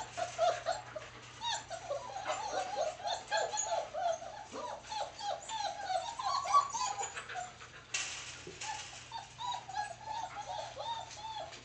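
Four-week-old German Shepherd puppies whimpering and whining: a rapid, near-unbroken string of short, high cries, each sliding down in pitch.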